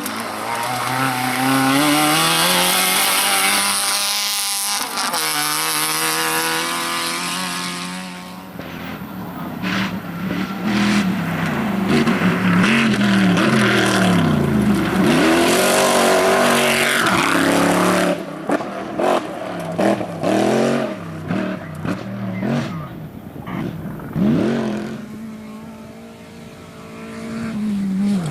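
Rally car engine revving hard, its pitch climbing and dropping again and again as it is driven through the gears. About two-thirds through the sound turns choppy with short stabs of throttle, then the revs sweep up once more near the end.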